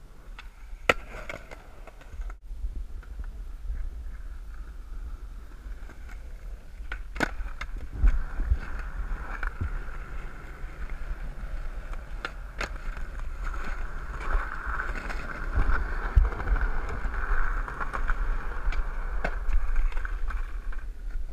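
Skateboard wheels rolling over rough concrete with a steady grinding hum that grows louder in the second half. Sharp clacks of the board popping and landing cut in about a second in, around seven seconds, and twice around twelve seconds.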